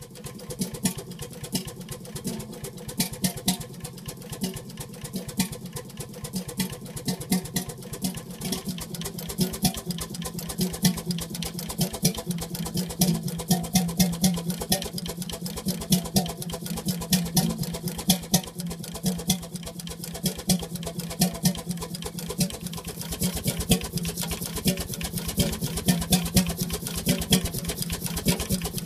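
Very early two-stroke Avance hot bulb engine of 2 hp, from 1900, running: a fast, steady mechanical clatter of clicks, with louder knocks recurring throughout.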